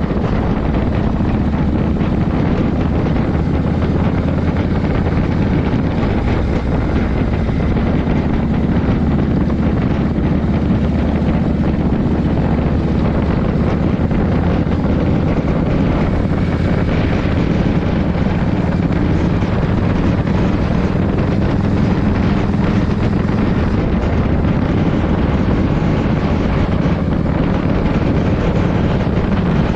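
Harley-Davidson Shovelhead V-twin, its top end freshly rebuilt, running steadily under way on a road ride, with wind buffeting the microphone.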